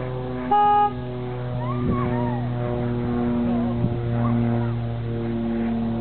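A Land Rover Freelander's car horn sounds once, a brief single-tone beep about half a second in, set off by a horse nosing at the steering wheel. A steady low mechanical drone runs underneath.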